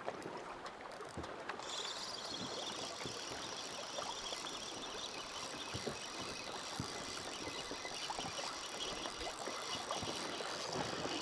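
Water lapping against an inflatable boat's hull, with wind and small knocks and ticks scattered through.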